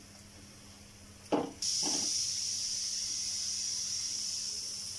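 Aloo paratha frying in oil on a hot tawa. A knock comes about a second and a half in, then a loud, steady sizzle starts suddenly.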